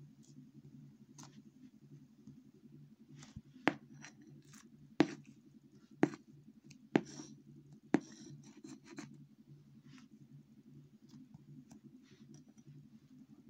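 Hands working a lump of butter slime on a cardboard box lid: a run of sharp clicks and taps, five louder ones about a second apart in the middle, with smaller ticks between, over a faint steady low hum.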